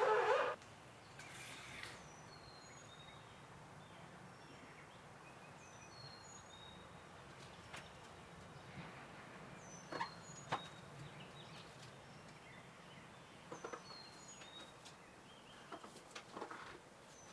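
Faint songbird singing: a short phrase of high chirps, repeated every few seconds, with a few light clicks and knocks scattered through.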